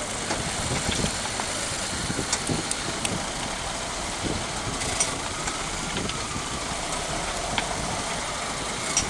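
Caterpillar wheel loader's diesel engine running while its tipped bucket pours sand down an inclined screen, with a steady hiss of the falling sand.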